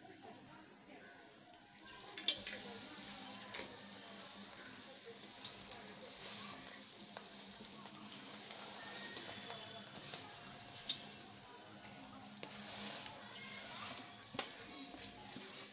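Grated jaggery tipped and scraped off a metal plate into oil in an aluminium pressure cooker, with a sizzling, crackling hiss from about two seconds in and a few sharp knocks of the plate on the pot, the loudest just after two seconds. This starts the jaggery syrup (paak).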